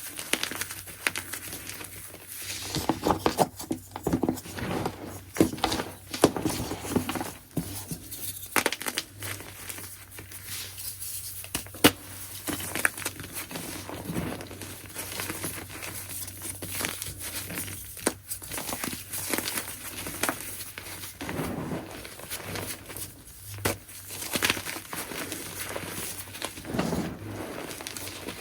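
Chunks of gym chalk being crushed, a steady run of irregular dry crunches and crumbling crackles, some sharp and loud.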